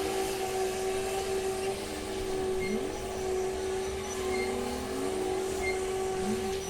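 Komatsu WA500 wheel loader running: a steady drone with a constant whine, and the engine pitch sweeping upward several times as it works. Faint short high beeps come and go.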